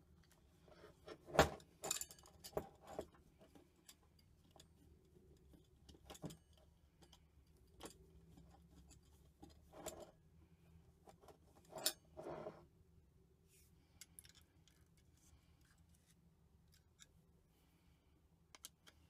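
Scattered small metallic clicks and clinks of a screwdriver working the Torx screws of a hard drive being taken apart, with parts knocking together. The loudest click comes about a second and a half in, and there is another bunch near twelve seconds.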